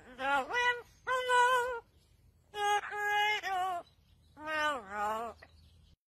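Amazon parrot singing in a human-like voice: four drawn-out phrases with gliding, wavering pitch, separated by short pauses.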